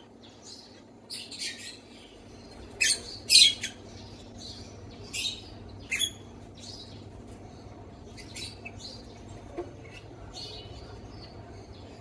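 Lovebirds giving short, sharp chirps and squawks at irregular intervals, with a couple of louder calls about three seconds in, over a faint steady hum.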